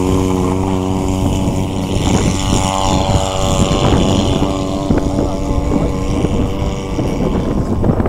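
Model tug plane's propeller engine running at high power as it tows the glider off the ground and into a climb, rising in pitch as it opens up, then holding steady and fading near the end. Wind rumbles on the microphone throughout.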